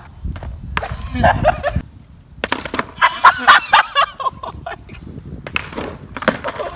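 A skateboard knocking and clacking on asphalt a few times as it tips, is grabbed and is set back down, with a girl laughing in between.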